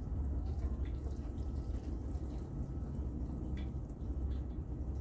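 Gasoline being poured from a fuel can into a lawn tractor's fuel tank: a steady trickle of liquid over a low rumble.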